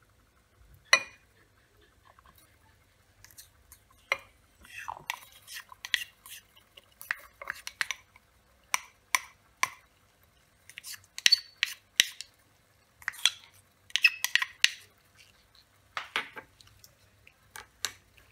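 Irregular sharp clinks and taps of lab glassware being handled, a single one about a second in, then a long cluster of them and a few more near the end.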